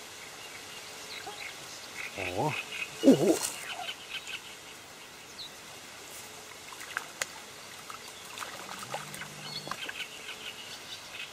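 A small crucian carp splashing at the surface as it is hooked and drawn in on a float rod, heard as scattered short splashes. Two short vocal exclamations come about two to three seconds in, and a fly buzzes briefly near the end over faint insect noise.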